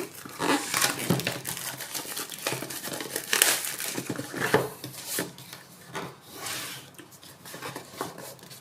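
Thin plastic wrapping being torn open and crumpled off a phone box: irregular crackling and crinkling, loudest about halfway through and thinning out near the end.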